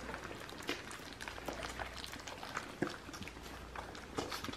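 Three-week-old American bully puppies sucking and chewing on raw chicken: many small, irregular wet smacks and clicks.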